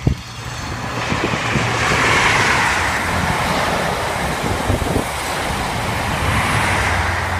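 InterCity 125 High Speed Train, led by a Class 43 diesel power car, passing through at speed: a loud, steady rush of wheels on rail and air with a low engine hum beneath, swelling about two seconds in as the power car goes by and carrying on as the coaches pass.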